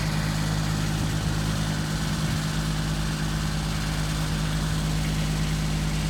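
Bucket truck's engine running steadily at idle, a constant low hum with no change in speed.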